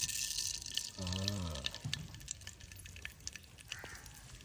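Mustard seeds dropped into hot cooking oil in a pan, sizzling with many small crackling pops. The hiss is strongest at first and dies down after about a second, and scattered pops carry on.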